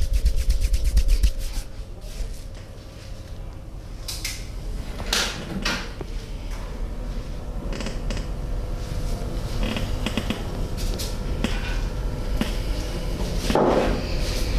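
Massage sounds: hands rubbing and striking a person's body. A fast run of pats stops about a second and a half in, and several sharp knocks or clicks follow.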